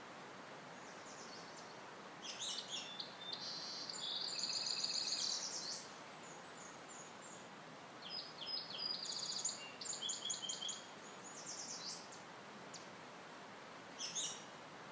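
A bird singing: a series of high, trilling and whistled phrases, several seconds apart, over a faint steady hiss.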